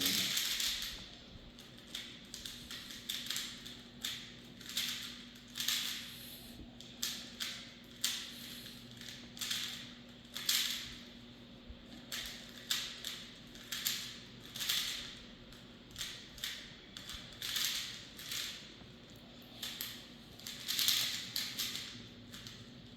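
Plastic Rubik's Cube being turned quickly by hand: quick clusters of clicking, rattling layer turns broken by short pauses while the solver looks for the next moves.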